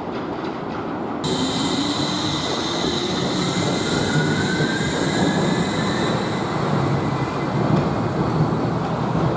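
Wuppertal Schwebebahn suspension railway car running along its overhead steel rail: a steady rumble of the wheels on the rail. About a second in the sound changes abruptly and grows louder, with a high steady squeal and an electric drive whine that rises in pitch as the car picks up speed.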